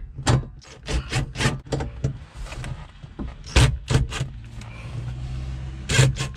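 DeWalt cordless drill driving self-tapping screws into sheet metal, the motor whirring in short runs with sharp clicks in between, and one steadier run of about a second and a half near the end.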